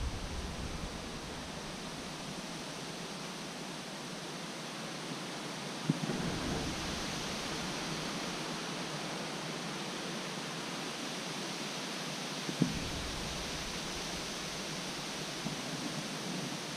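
Steady outdoor hiss of wind and rustling leaves, with a sharp tick about six seconds in and another about twelve and a half seconds in.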